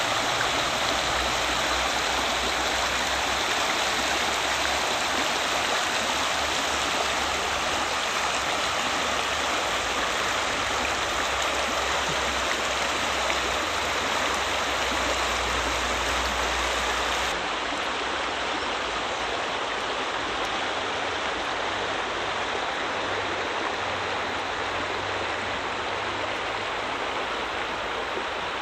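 River water rushing steadily over a low weir. About seventeen seconds in, the sound changes abruptly to a slightly quieter steady rush.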